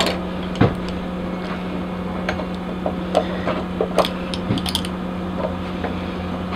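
Pliers gripping and working the drilled-out remains of a rivet out of a steel dog-proof raccoon trap: scattered small metal clicks and scrapes, the sharpest about four seconds in. A steady low hum runs underneath.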